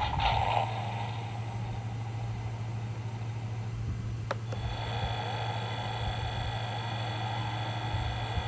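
Spin Master Batmobile toy from The Batman (2022) playing its built-in engine sound effects through its small speaker in try-me demo mode, each set off by a button click. A short burst at the start dies away, then after a second click about four seconds in a steady engine sound with a high hum over it runs on.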